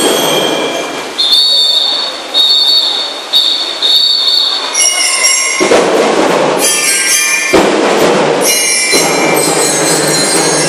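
School drum and lyre corps playing. The bell lyres ring out a high note three times, about a second apart, then drums crash in with the lyres about halfway through and carry on in strong, repeated strokes.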